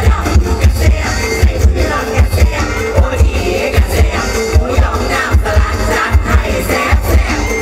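Loud mor lam dance music with a heavy, steady bass beat.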